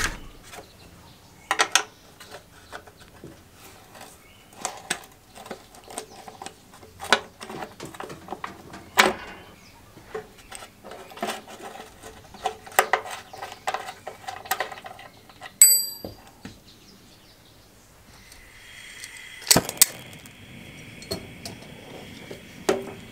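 Clinks and taps of a spanner and small steel parts being handled as a bracket is unbolted, with one ringing metallic ding about two-thirds through. Near the end a gas blowtorch starts hissing steadily, with a loud sharp click as it lights, to heat a seized sprocket held in a gear puller.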